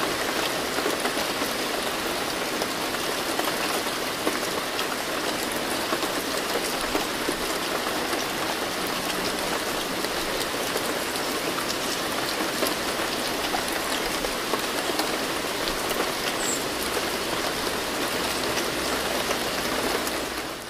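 Steady rain: an even hiss of countless drops with fine ticks of individual drops through it, fading out right at the end.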